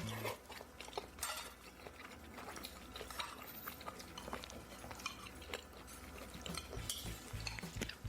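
Utensils clinking and scraping against dishes, with chewing, as a meal is eaten: a scatter of short sharp clicks.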